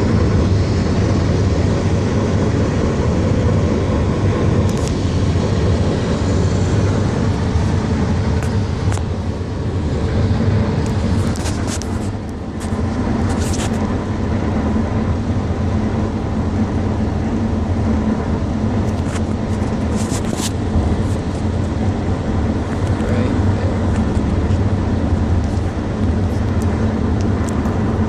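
Steady low road and engine rumble of a car driving, heard from inside the cabin, with a few short sharp crackles now and then.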